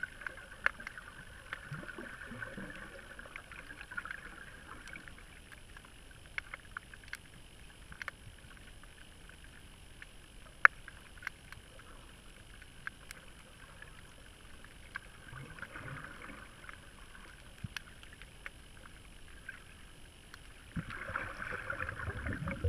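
Faint underwater ambience: a low hiss broken by many scattered sharp clicks, swelling into a louder wash a few times, near the start, about two thirds of the way in and near the end.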